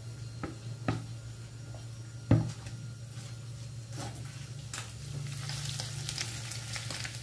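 A wooden spoon knocks and scrapes against a bowl and a pot as crumbled sheep's cheese is scraped onto pasta, with the sharpest knock about two seconds in. In the last couple of seconds comes a sizzling hiss as hot fried sausage and bacon slide from a frying pan into the pot.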